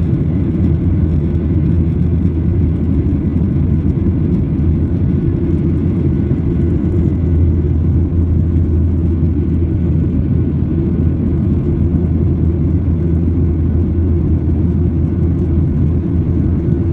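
Steady low rumble of a jet airliner's cabin in flight: engine and airflow noise, strongest in the deep bass, holding even without change.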